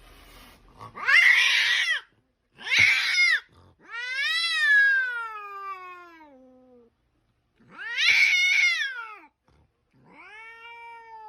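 A cat meowing loudly five times in drawn-out calls. The third call is the longest and slides down in pitch, and the last is quieter.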